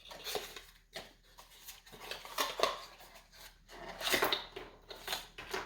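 A small cardboard box being opened and its contents, USB-C cables, handled: irregular rustling, scraping and light clicks, loudest about two and a half and four seconds in.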